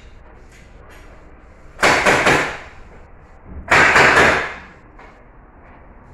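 Pneumatic nail gun on an air hose fired into a treated-wood bed frame in two loud bursts about two seconds apart, each a quick run of shots with a hiss of air.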